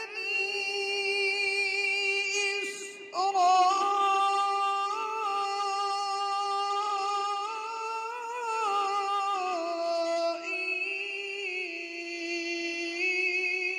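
Quran recitation by a male qari: a single voice chanting in long held notes with slow ornamented turns in pitch, breaking off briefly for breath about three seconds in.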